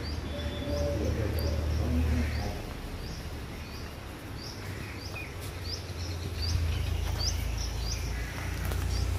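A small bird calling over and over, short high chirps repeating about every half second, over a steady low rumble.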